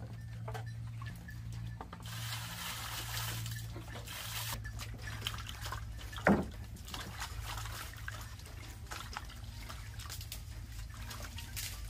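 Water sloshing and splashing in a metal basin as fish are rubbed and washed by hand, with one sharp knock about six seconds in. A steady low hum runs underneath.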